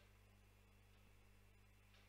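Near silence: faint steady low hum and hiss of the recording.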